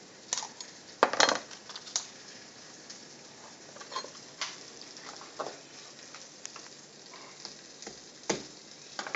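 Knife cutting up a raw chicken, the blade knocking on a plastic cutting board now and then, loudest a little over a second in. Behind it a faint steady crackle of chicken frying in hot oil in a pan.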